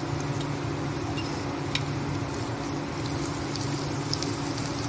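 Chopped ginger and garlic sizzling steadily in hot oil in a nonstick kadhai as they are stirred with a spatula, over a steady low hum.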